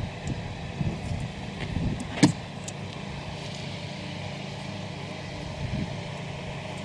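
Plastic door trim being worked free of its retaining clips: a few small knocks and rattles, then one sharp snap a little over two seconds in, over a steady low hum.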